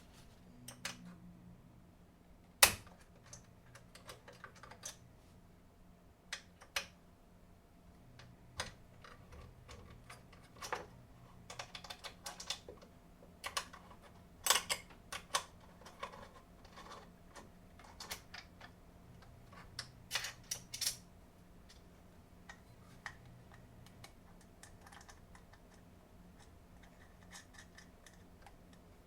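Scattered light clicks and knocks of parts being handled while fitting spool supports to a 3D printer, with a sharper knock about two and a half seconds in and a busier run of clicks in the middle. A faint steady low hum lies underneath.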